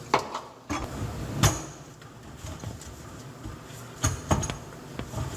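Sharp clanks and knocks of hard garbage disposal parts being handled and set against each other: one just after the start, another about a second and a half in, and a quick pair about four seconds in.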